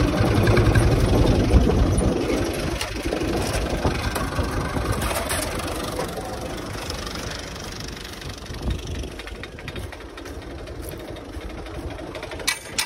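Tractor diesel engine running, loud at first and fading steadily over several seconds. A quick run of sharp clicks comes near the end.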